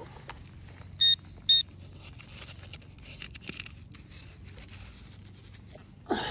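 Handheld metal-detecting pinpointer pushed into a dug plug of soil gives two short, high beeps about half a second apart, the signal that it has found metal.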